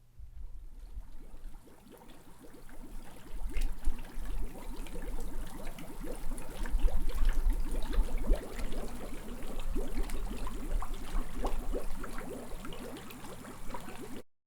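Running water splashing and gurgling with a low rumble underneath, building up over the first few seconds; it cuts off abruptly near the end.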